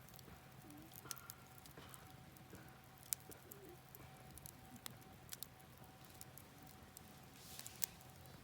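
Wood campfire crackling quietly, with a few sparse sharp pops, the loudest about three seconds in and again near the end.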